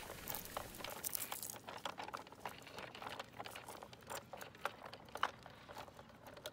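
Faint, irregular crackling and rustling of dry leaves and twigs, as something moves over leaf litter.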